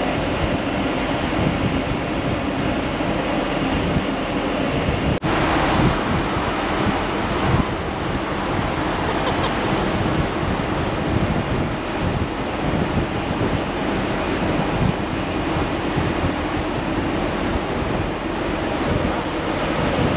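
Wind buffeting the microphone over the steady rush of a rough, choppy sea.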